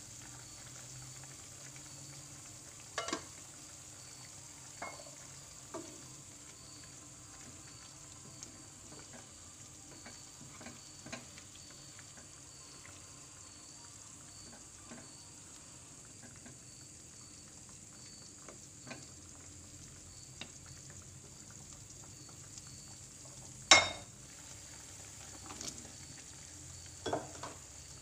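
Chicken curry simmering in a non-stick frying pan with a low, steady sizzle. A spatula stirs and scrapes through it, knocking against the pan now and then; the loudest knock comes late, followed by two smaller ones.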